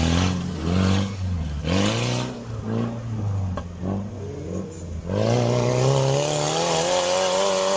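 Off-road race buggy's engine revving in short rising and falling bursts under load on a dirt climb. From about five seconds in it is held at high, steady revs that creep slowly higher.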